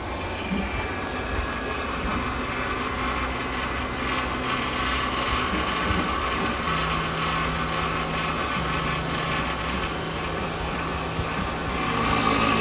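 Electronic key-cutting machine running steadily as it cuts a car key blade, its motor and cutter giving a steady mechanical whir. A high-pitched squeal comes in near the end.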